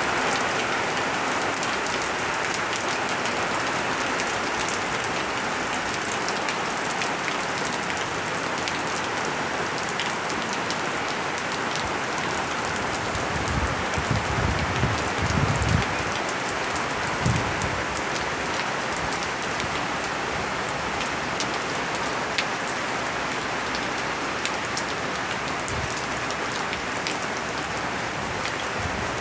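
Steady rain falling, a constant hiss with fine patter. A brief low rumble comes about halfway through, and a shorter one soon after.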